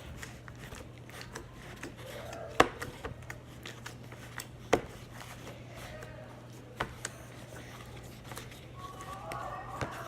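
Small plastic containers and lids being handled: a few sharp clicks and knocks a couple of seconds apart, over a low steady hum, with faint voices near the end.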